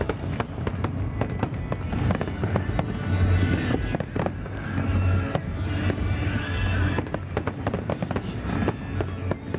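Aerial fireworks shells bursting in quick succession, with many sharp reports and crackles, over music playing along with the show.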